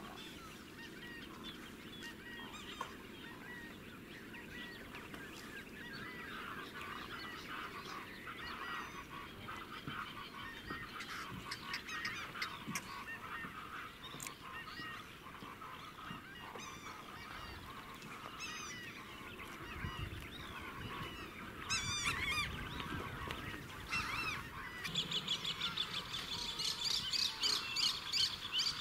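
Dawn chorus of many wetland birds calling over each other, with honking calls among them. About 25 seconds in it turns louder and busier, with rapid high-pitched calls from a large flock.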